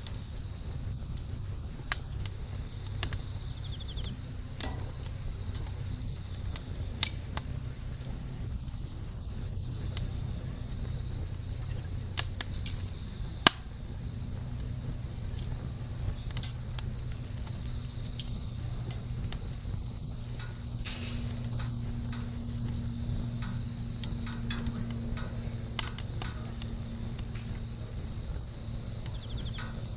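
Wood campfire burning, with scattered sharp crackles and pops from the burning wood and one loud pop about halfway through. A steady high insect trill runs underneath, over a low steady rumble.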